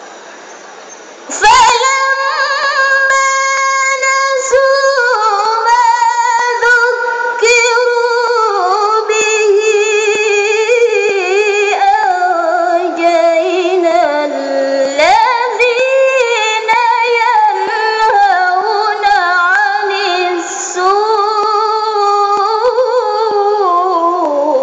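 Woman reciting the Quran in the high-pitched, melodic tilawah style: a single long melismatic phrase of held and ornamented notes. It begins about a second in, dips lower in pitch around the middle, climbs again and ends just before the close.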